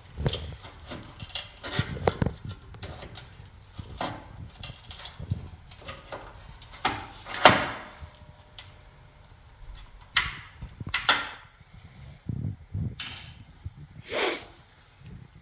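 Scattered knocks and clanks of tools and metal car parts being handled, with no power tool running. The loudest is a sharp clank about halfway through that rings on briefly.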